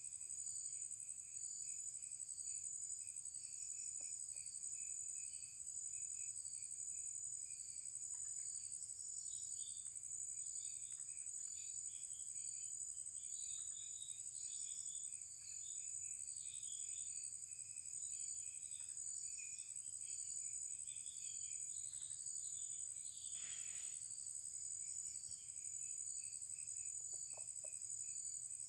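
Steady high-pitched insect chorus with a pulsing trill beneath it and scattered small chirps, and one brief louder sound about three-quarters of the way through.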